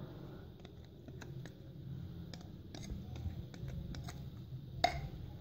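Light, irregular clicks and taps of a wire whisk against a glass mixing bowl as thick cake batter is poured and scraped out into a cake pan, with a sharper tap near the end. A low steady hum runs underneath.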